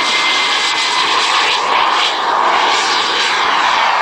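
Radio-controlled model jet's turbine engine at high power, a loud steady rushing roar with a faint high whistle, as the jet makes its takeoff run and climbs away.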